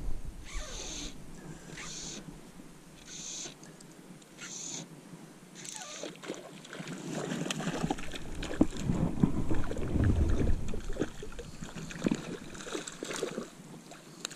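Fly line being stripped in by hand in short hissing pulls, about six over the first six seconds, while a hooked fish is played. Then water splashing and rustling handling noises as the fish is brought into a landing net, loudest about ten seconds in.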